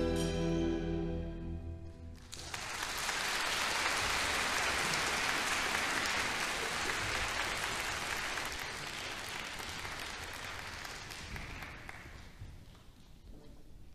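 A youth orchestra's final held chord, which cuts off about two seconds in. Audience applause follows and fades out near the end.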